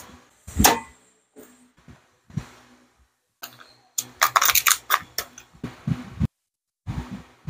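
Crinkling and crackling of a clear plastic ink-cartridge wrapper being torn open and handled, with scattered clicks and rustles. The densest crackling comes about four to six seconds in and stops abruptly.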